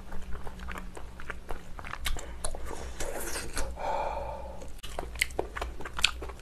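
Close-up mouth sounds of chewing a mouthful of hot seafood stew, with many small wet clicks and smacks. Around three seconds in, a breathy open-mouthed exhale to cool food that is still hot.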